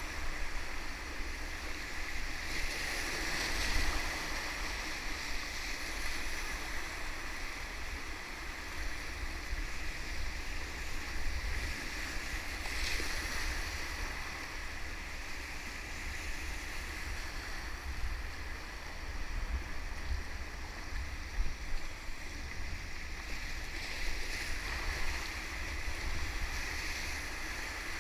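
Steady rushing of whitewater rapids, with a flickering low rumble underneath. It swells briefly about four seconds in, around the middle and near the end.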